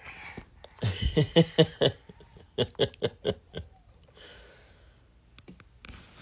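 Laughter in two runs of short, quick ha-ha bursts, the first about a second in and the second near the middle.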